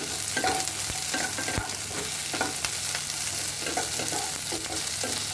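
Potato pieces, small onions and garlic sizzling in hot oil in a pan, with the steady hiss of frying and irregular scrapes of a spoon stirring them against the pan.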